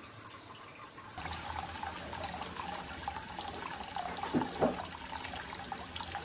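Hot-spring water pouring from a pipe spout in a thin stream into a full bath, splashing steadily. It gets louder about a second in, with two brief louder splashes past the middle.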